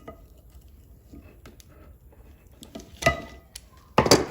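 Hand tool clinking against the steel axle shaft while the axle seal is worked off, with light scrapes and then two sharp ringing metallic clanks about three and four seconds in, the second the loudest.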